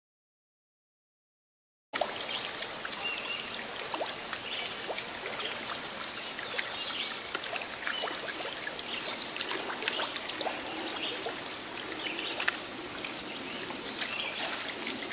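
Total silence for about the first two seconds, then river water trickling and babbling steadily.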